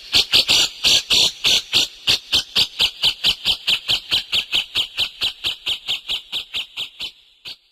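Caged songbird calling one short note over and over, about five times a second, steadily fading and then stopping abruptly near the end.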